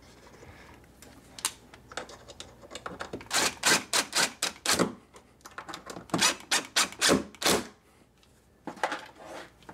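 Cordless DeWalt driver driving screws into a 3D-printed PLA cradle in short, sharp bursts, in two runs from about three seconds in to about seven and a half seconds. A few lighter knocks follow near the end.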